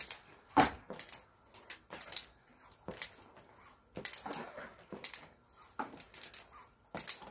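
Climbing ropes being pulled fast through belay devices to pay out slack: an irregular run of short rope swishes and clicks, the loudest about half a second in.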